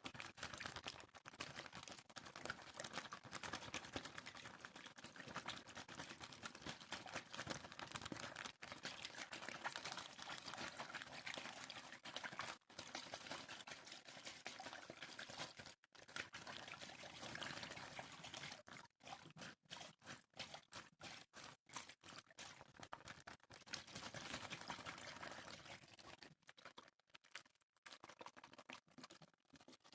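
Water being poured and sloshed in quick, irregular movements, fairly quiet; it runs continuously for the first half, then turns choppy with many brief pauses.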